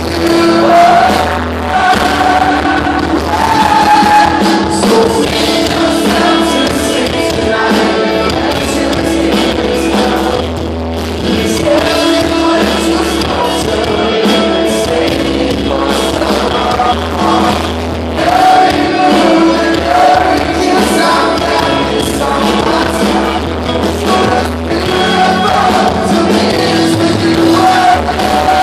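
Live rock band playing, with a singer over electric guitars and drums, heard from within the crowd.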